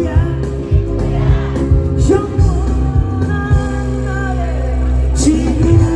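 Live amplified pop band music with a man singing over a steady bass and drum beat.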